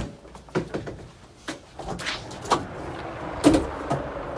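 A series of sharp knocks and clunks, about six spread over four seconds. A steady background hum rises from about two seconds in.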